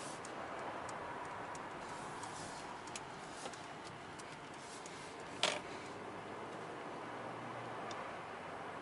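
Steady road and tyre noise heard from inside the cabin of a Mercedes S500 driving in town, with faint scattered ticks and one sharp click about five and a half seconds in.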